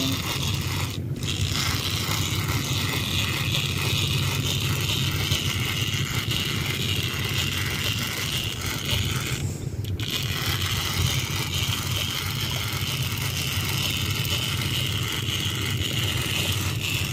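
Fishing boat's engine running steadily under an even rushing hiss, with two brief dips in the hiss, about a second in and about halfway through.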